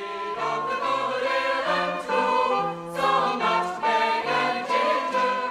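Choral music: a choir singing held notes together, as a musical interlude.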